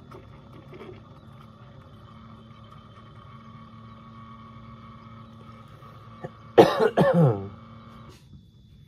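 A man coughs loudly, a sharp burst followed by a short voiced tail that falls in pitch, over a faint steady hum that stops about a second later.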